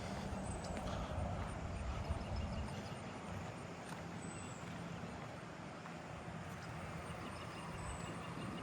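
Footsteps on pavement over a low steady rumble, with a faint high, evenly pulsing insect call.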